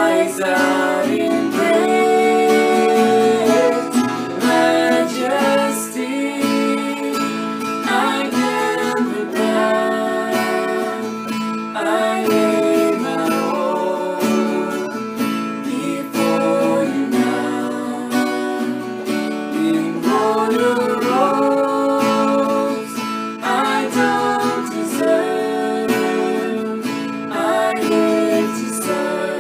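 A man and a woman singing a worship song together, accompanied by a steadily strummed acoustic guitar.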